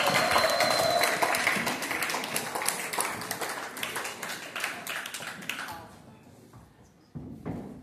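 Audience applause: many people clapping. The clapping thins out and fades away over about six seconds.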